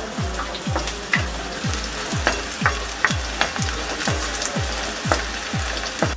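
Chopped onion frying in oil in a metal kadai, sautéing until translucent, stirred with a wooden spatula that scrapes and taps the pan in irregular clicks. Under it runs a background music beat, a deep falling kick about two and a half times a second.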